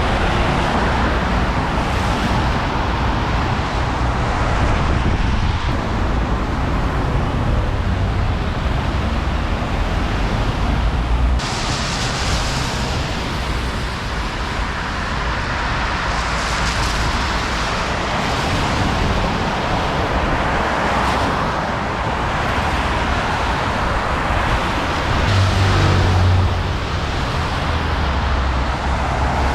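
Steady road-traffic noise, with rumbles that swell and fade and a louder low rumble about 25 seconds in.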